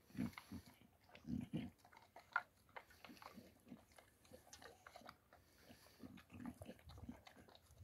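Boxer dog eating dry kibble from a steel bowl: faint, irregular crunching and chewing with small clicks and a few low thuds.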